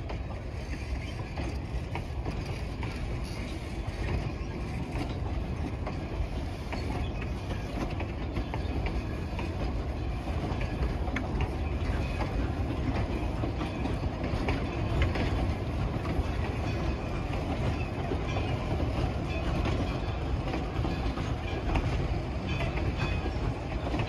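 A train running on track: a steady low rumble with occasional faint clicks from the wheels and rails.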